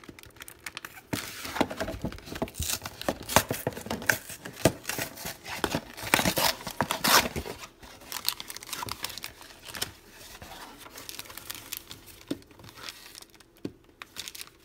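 Thin cardboard of a Fruit Roll-Ups box tearing and crinkling as hands pull a glued-in Pokémon card pack free, busiest and loudest in the first half. It then eases to softer rustling of the pack and cardboard, with a couple of sharp clicks near the end.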